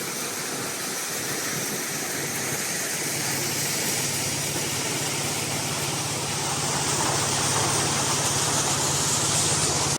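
SuperB grain dryer running: a steady dense rush of fan noise over a low hum, growing a little louder about two-thirds of the way through.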